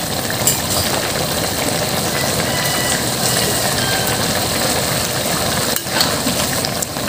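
Fish in a chili-tomato paste sizzling and bubbling in a wok over the stove, a steady hiss as the sauce reduces.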